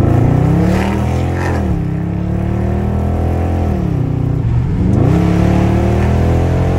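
Dodge Charger R/T's Hemi V8 accelerating through the gears. The engine note climbs, drops at an upshift just under two seconds in, climbs again, falls around four seconds in, and climbs once more.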